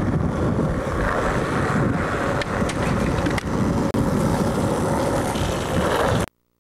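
Skateboard wheels rolling over rough asphalt in a steady rumble, with a few light clicks from the board, and wind on the microphone. The sound cuts off suddenly near the end.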